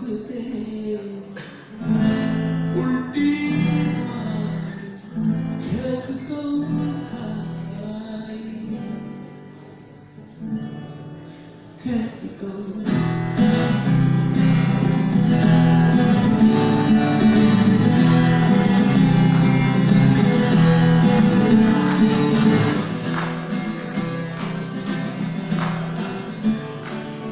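Acoustic guitar strummed in a live performance, with a man singing along at the microphone. The playing is fairly soft at first and becomes louder and fuller about halfway through.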